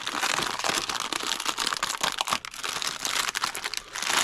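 Plastic cookie wrapper crinkling steadily as it is handled and pulled open, with many small crackles.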